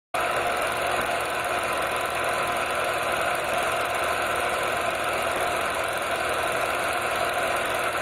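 Film projector running: a steady mechanical whir that starts abruptly and holds level without change.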